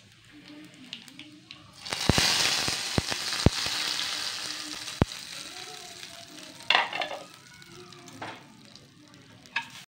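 Hot oil tempered with cumin seeds hitting the yogurt-soaked dahi phulkis, a loud sizzle that starts suddenly about two seconds in and dies away over the next few seconds. A few sharp clicks sound during the sizzle.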